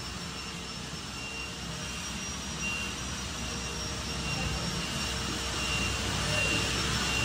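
Isuzu Elf Giga minibus's diesel engine running at low revs as the bus manoeuvres slowly, growing gradually louder, with a faint high whine coming and going.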